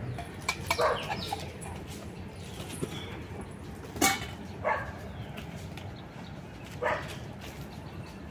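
A dog barking a few times in short, sharp barks, spaced irregularly.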